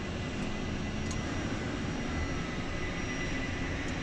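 Twin turbofans of an Embraer Phenom 300E running on the ground, heard from the cockpit: a steady jet rush with a few high tones. The left engine is spooling up after light-off toward self-sustaining speed while the right engine idles.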